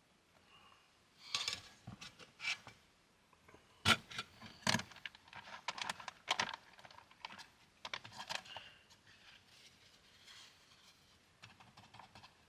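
Irregular crinkling and rustling of a freeze-dried meal pouch being handled and stirred, with scattered sharp clicks and clinks.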